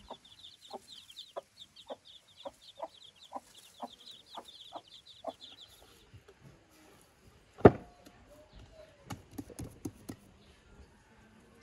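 Hen clucking in short, soft clucks about twice a second, with her chicks peeping rapidly and high above her; both stop about six seconds in. A single sharp knock follows, the loudest sound here, then a few lighter taps.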